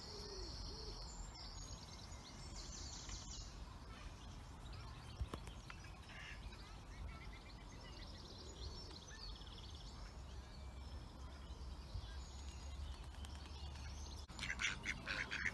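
Small birds chirping faintly in the background over a low steady outdoor rumble. About a second before the end, mallard ducks start quacking loudly, several calls in quick succession.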